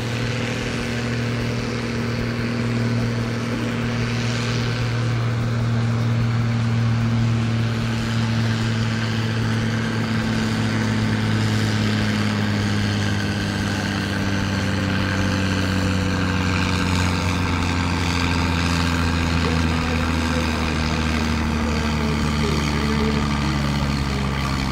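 Case IH 1455 tractor's diesel engine running flat out under heavy load while it pulls a weight-transfer sledge. The engine note is loud and steady, and its pitch sags slowly over the second half as the sledge bears down.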